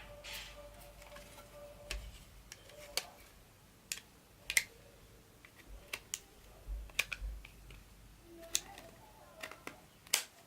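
Irregular sharp clicks and taps of a hard polycarbonate phone case and phone being handled, a dozen or so at uneven intervals.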